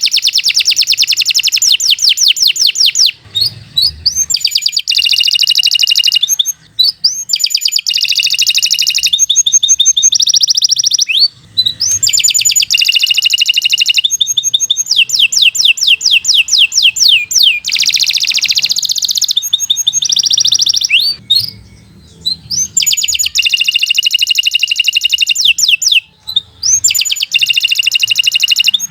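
Domestic canary singing in full voice: a long song of rapid trills and rolling, repeated notes that runs almost without a break, pausing only briefly a few times.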